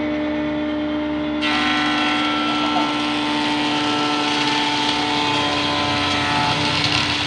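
Oscar WJ 200 C woodworking machine running with a steady motor hum. About a second and a half in, a board goes through it, and the hissing noise of the cutter biting wood joins the hum and carries on.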